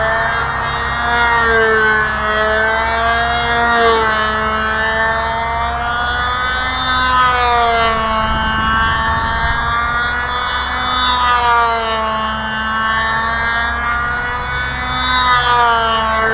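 Ringmaster control-line model airplane's small engine running hard as the plane flies circles, a high whine whose pitch rises and falls with each lap, about every four seconds.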